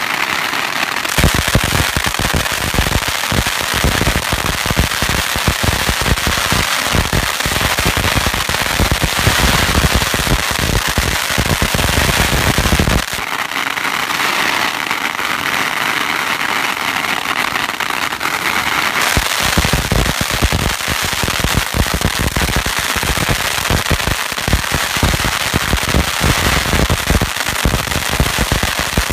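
Long strings of firecrackers hung from an overhead line going off in a continuous rapid crackle of bangs. The volley thins out for several seconds about halfway through, then builds up again.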